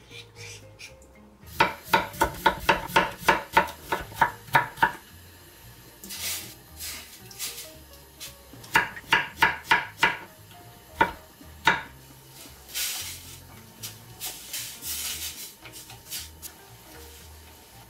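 Kitchen knife chopping vegetables on a wooden cutting board: a quick run of about a dozen strikes near the start and a shorter run of about six near the middle, then two single strikes, with softer scraping sounds between.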